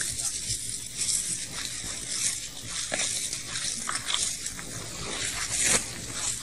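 Steady hiss of an old lecture-hall recording, with a few soft clicks and knocks scattered through it.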